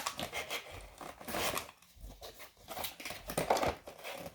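Crinkling and rustling of a toy's packaging being worked open by hand, in short irregular bursts.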